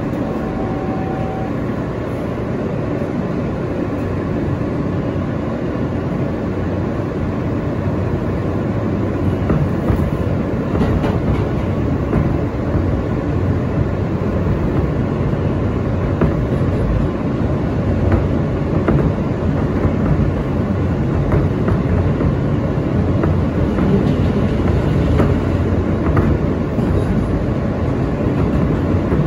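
New York City Subway R160A-2 car running on the line, its rumble building steadily as the train picks up speed. From about ten seconds in, wheels click over rail joints.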